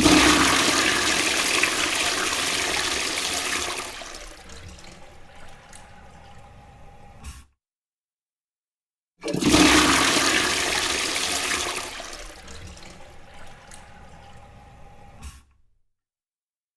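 Two toilet flushes, one after the other: each begins with a loud rush of water for about four seconds, then fades to a quieter trickle before cutting off abruptly, with a brief silence between them.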